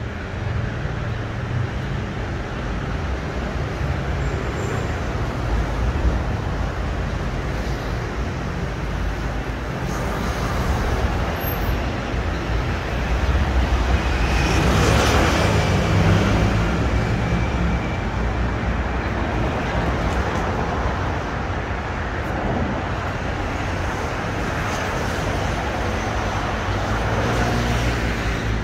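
City street traffic: a steady wash of motor vehicles running past, with one passing close and swelling loudest about halfway through.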